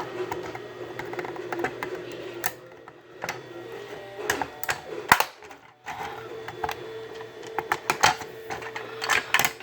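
Plastic clicks, taps and knocks of a power strip's plastic casing being handled and pried apart, irregular and loudest about halfway through and again near the end, over a steady low hum.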